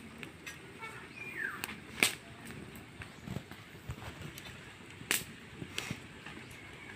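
Wood fire crackling under a large wok, with a few sharp snaps; the loudest come about two seconds and five seconds in.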